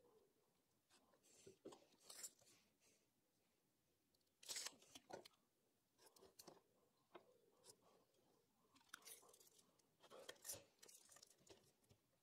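Near silence with faint, scattered scratches and taps of marking out on timber: a pencil drawing lines against a square on a pine 4x2, and a tape measure being handled.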